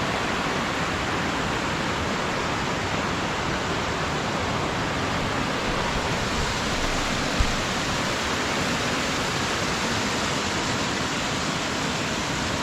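Small waterfall on a river, its water falling and rushing in a steady, even hiss. One brief low thump about halfway through.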